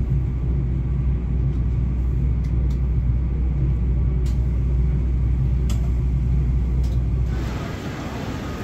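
Steady low rumble inside an ICE 2 high-speed train carriage as it rolls into a station, with a few faint ticks. About seven and a half seconds in it gives way to a quieter station-platform hiss.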